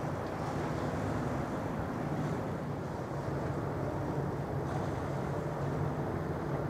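Steady low engine drone, an even hum of several pitches over open-air background noise, with no change in level.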